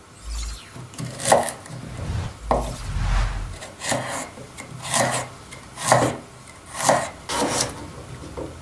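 Chef's knife slicing peeled ginger root and then a carrot on a wooden cutting board, each stroke ending in a knock of the blade on the board, about once a second.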